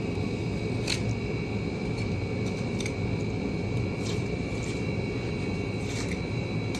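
A knife cutting through a swordfish fillet, a few short sharp clicks a second or two apart, over a steady low background hum with a faint high tone.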